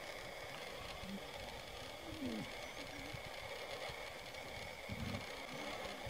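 Low rumbling background noise, with a short, low animal growl about two seconds in and another near five seconds.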